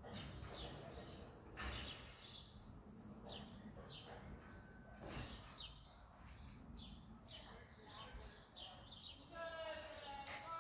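Small birds chirping faintly and repeatedly, each chirp a short high note falling in pitch, every half second to a second. A distant voice comes in near the end.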